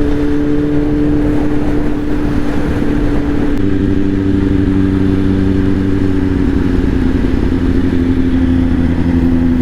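Kawasaki inline-four motorcycle engine running under way at a steady speed. The exhaust note holds an even pitch, with a deeper layer joining a few seconds in.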